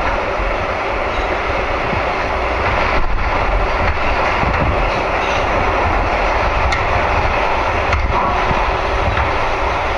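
New York subway train running on the tracks: a steady, loud rumbling noise with a few faint clicks.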